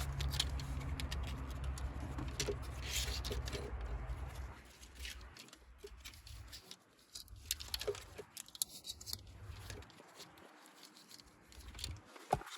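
Scattered clicks, taps and scrapes of parts being handled in an engine bay as ignition coil wiring is clipped back into place. A low steady hum runs under the first few seconds.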